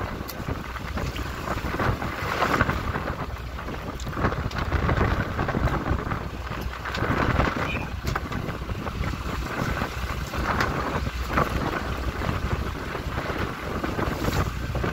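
Wind buffeting the microphone over sea water washing against the hull of a small open boat, the rush swelling and easing every second or two.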